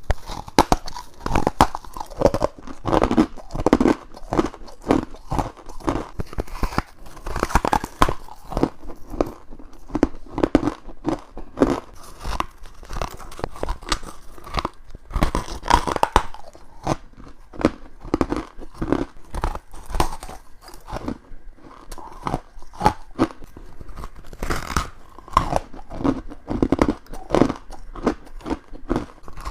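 Close-miked biting and chewing of frozen frost and ice: a dense, continuous run of sharp, crisp crunches, several a second.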